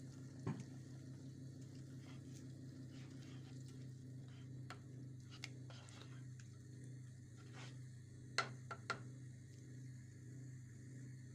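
Slotted spoon stirring tomato juice and onion in a nonstick pot, with a few light knocks of the spoon against the pot, the two loudest close together late on. A steady low hum runs underneath.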